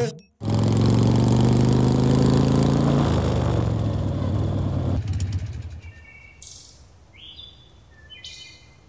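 Motorcycle engine running as the bike rides in and pulls up, fading out about five seconds in; birds chirp briefly after.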